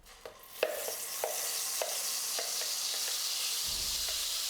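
Ground ripe-banana paste sizzling in hot ghee in a kadai, a steady frying hiss that builds up within the first second, with light spoon knocks about every 0.6 seconds.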